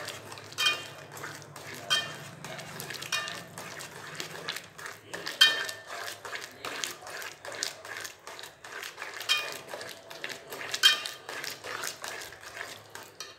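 Metal spoon scraping and clinking against a metal kadai as thick rava kichadi is stirred while the semolina cooks, with ringing clinks about every second, the sharpest about five and eleven seconds in.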